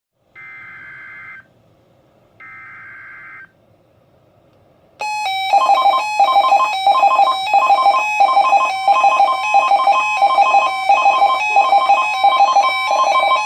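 Emergency Alert System data header: two one-second bursts of warbling digital tones. About five seconds in, a receiver's electronic alert alarm starts: a loud, steady electronic tone with a rapid beeping pulse about twice a second, announcing an incoming severe thunderstorm watch.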